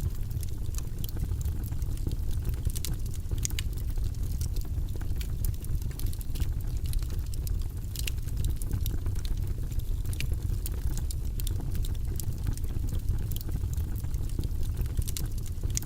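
Wood fire burning in a fireplace: logs crackling with frequent irregular sharp pops and snaps over a steady low rumble of the flames.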